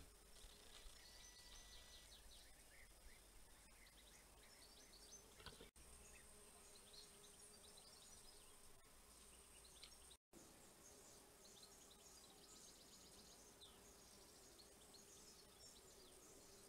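Near silence: faint outdoor background with scattered faint high chirps.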